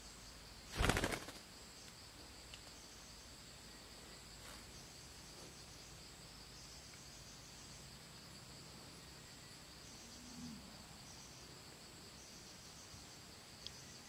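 A parakeet's wings flapping in one brief burst about a second in as it flies in to land on the branch. Under it, insects drone steadily and high.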